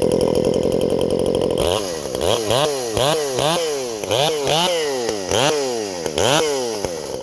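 Modified Craftsman chainsaw with a homemade muffler and cold air intake, held at high revs for about a second and a half, then revved up and down over and over, about twice a second.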